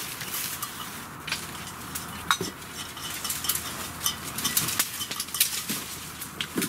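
Dry twigs cracking and wooden sticks knocking, with leaves rustling, as branches are tossed aside and a long wooden pole is carried and laid down on the forest floor. Irregular sharp cracks and knocks, a few clearly louder than the rest.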